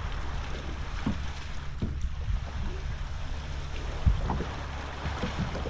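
Sea water lapping against a fishing kayak's hull, with wind rumbling on the microphone and a few light knocks, the clearest about four seconds in.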